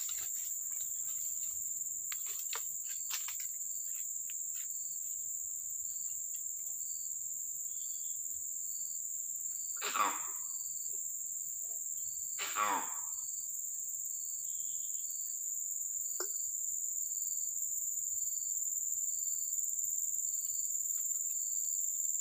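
Steady high-pitched insect drone from the forest, with a second, lower insect chirping about twice a second through the latter part. Two short pitched calls stand out about ten and twelve and a half seconds in.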